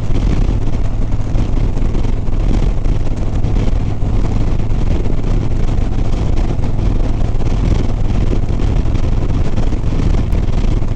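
Harley-Davidson Sport Glide's V-twin engine running steadily at highway speed, with a constant low hum, mixed with wind rushing over the microphone.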